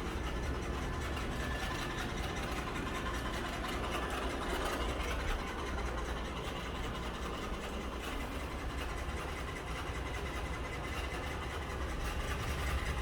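Robot floor cleaner running, a steady motor hum with a low rumble underneath.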